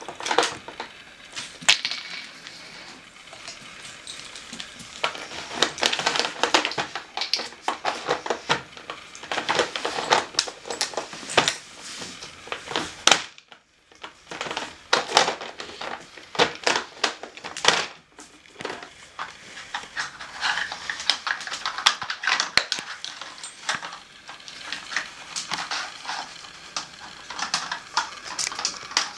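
Hard plastic pieces of a Nina Ottosson dog treat puzzle clattering and knocking on a hardwood floor as a dog paws and noses at it: loose bone-shaped pegs and the tray rattle in irregular clicks, with a brief lull about halfway.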